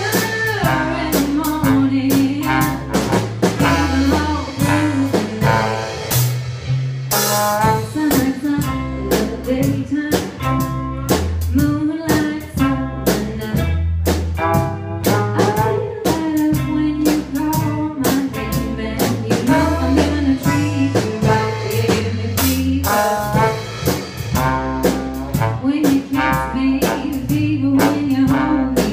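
Small live jazz-blues band playing: a woman singing over trombone, electric guitar, bass and drum kit, with a steady walking bass line and regular drum strokes.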